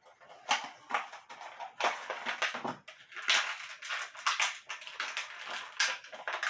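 Packaging of a small die-cast action figure being opened by hand: irregular crinkling and rustling, busier in the second half.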